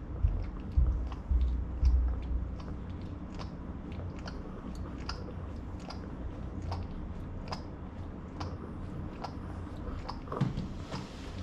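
A pug making small, sharp clicking mouth noises, about two a second, with a few low thumps in the first two seconds.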